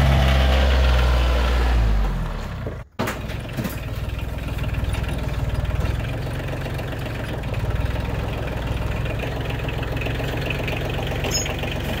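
Kubota compact tractor's diesel engine running loud and close. It cuts off abruptly about three seconds in, then an engine runs on steadily at a lower level.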